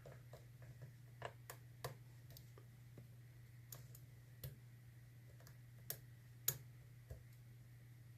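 Faint, irregular metallic clicks of a short hook pick and tension wrench working inside a Yale Platinum TS-007 dimple euro cylinder as its sliders are being set, with the sharpest click about six and a half seconds in. A low steady hum runs underneath.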